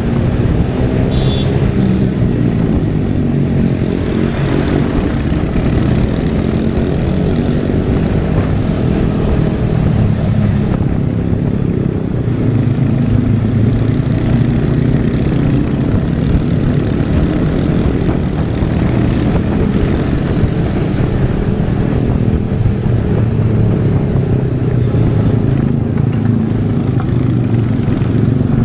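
Royal Enfield Hunter 350's single-cylinder engine and exhaust running on the move, its pitch rising and falling with the throttle.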